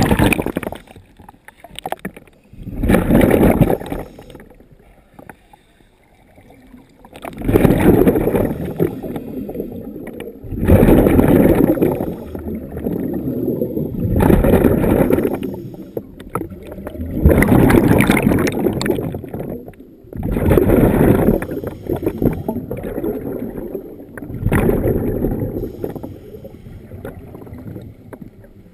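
Scuba diver breathing through a regulator underwater: each exhaled breath bursts out as a rush of bubbles, about every three to four seconds, with quieter pauses between breaths.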